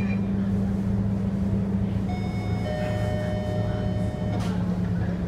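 Scania K230UB city bus's five-cylinder diesel engine idling steadily, heard from inside the bus while it stands still. From about two seconds in, a set of steady higher tones sounds over the engine for about two seconds.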